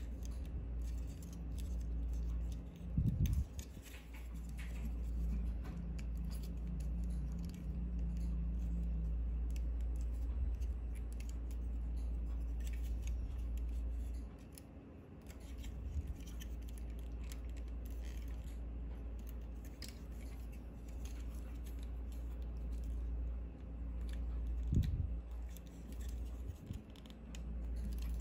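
Plastic parts of a transforming Megatron robot toy clicking and snapping as its joints and panels are folded by hand, with scattered sharp clicks and handling rubs.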